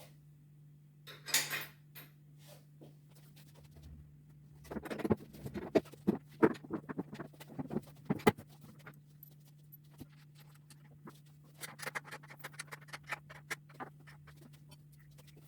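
Irregular clicks, knocks and scraping of parts being handled during work on a motorcycle's fuel tank, densest in the middle, over a steady low hum.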